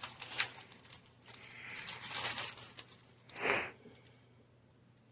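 Plastic packaging crinkling and rustling as pepperoni slices are handled, with a few sharp clicks at the start and one louder rustle about three and a half seconds in, then quiet.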